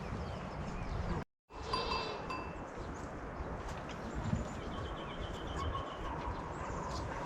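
Small livestock bells clinking and tinkling over steady outdoor background noise. The sound cuts out to silence briefly a little after a second in.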